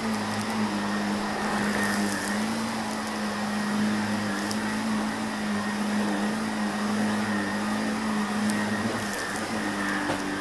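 Shark upright vacuum cleaner running steadily on a rug, a constant motor hum with a whine over a rushing hiss, and a few sharp ticks of debris crunching up into it.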